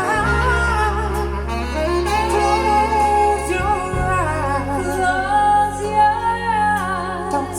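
Recorded music from a pair of Dynaudio Confidence C2 Limited Edition loudspeakers. It is an instrumental break of a slow ballad: a wavering lead melody over sustained bass notes, with the bass changing about four seconds in.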